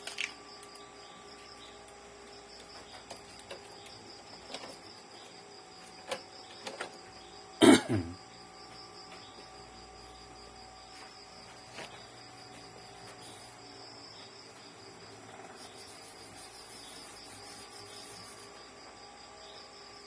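Crickets chirring steadily in the background, with a few small clicks and one loud knock near the middle from handling printer parts.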